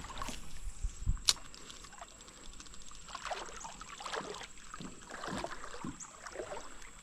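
Soft, irregular splashing and swishing of creek water, with a couple of low knocks and a sharp click about a second in.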